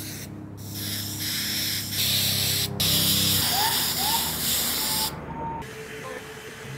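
Aerosol can of 3M 77 spray adhesive spraying in two long hissing bursts, with a brief break about two and a half seconds in. The spray stops about five seconds in.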